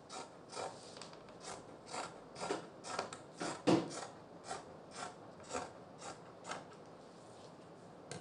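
Dressmaking scissors snipping through folded printed fabric, trimming out a marked pattern piece, about two cuts a second, stopping near the end.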